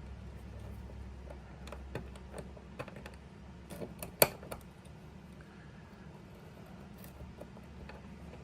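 Small metal ratchet parts clicking and tapping as they are handled and fitted during reassembly, with one sharp metallic click about halfway through.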